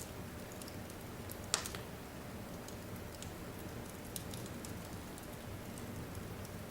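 Wood fire crackling in a fireplace, a steady low rumble with scattered small snaps and one loud pop about a second and a half in.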